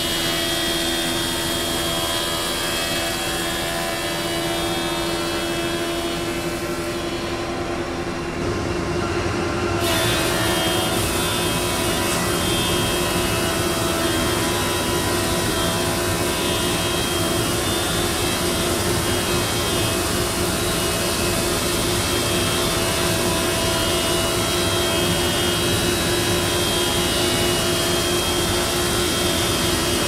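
Thickness planer running steadily with a dust collector while a walnut board feeds through its cutterhead. The sound is a loud, even machine noise with a steady low hum, and it grows a little louder about nine seconds in.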